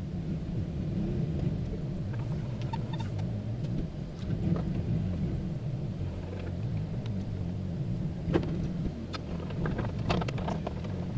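GMC pickup truck idling with a steady low rumble, with a few short metallic clinks from the trailer hitch and safety chains being coupled in the second half.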